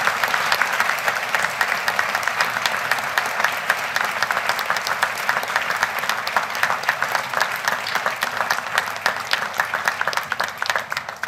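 Large audience applauding steadily; the clapping thins to separate claps near the end and dies away.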